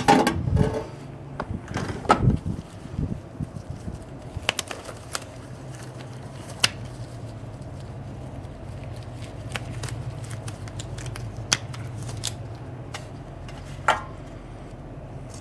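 Scattered light clicks and knocks of handling over a steady low hum, with a metal clink near the end as a metal sheet pan is lifted out of a charcoal pizza oven.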